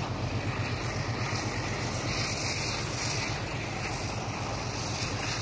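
Steady rumble of passenger train carriages rolling past on the rails, easing slightly near the end, with wind buffeting the microphone.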